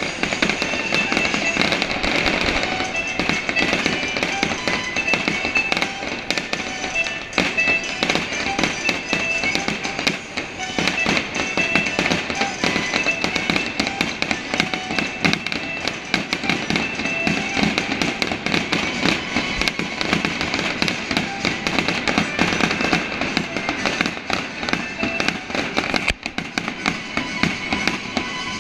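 Fireworks display: continuous dense crackling and popping of aerial fireworks, with music playing alongside.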